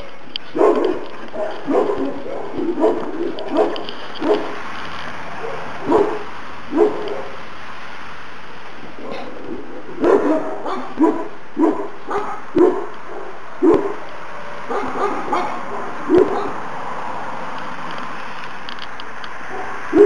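Šarplaninac puppies, about two months old, giving short yaps and barks in irregular runs, with quiet spells of a few seconds between them.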